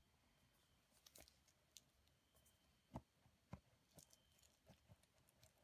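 Faint, scattered taps and rubbing of hands handling a smartphone's cardboard retail box as its lid is worked off. The most distinct knocks come about three seconds in.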